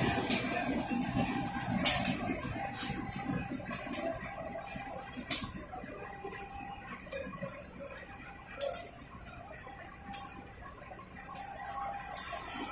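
Trains rolling slowly through a railway yard: a low rumble that fades away, broken every second or two by a sharp click of wheels crossing rail joints and points.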